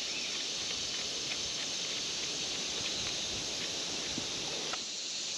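Steady high-pitched chorus of insects, with a few faint clicks of metal and plastic parts being handled.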